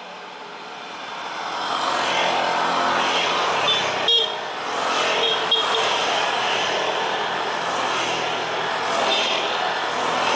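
Road vehicle noise, a steady rush that builds about a second in, with short horn toots around four and five and a half seconds in.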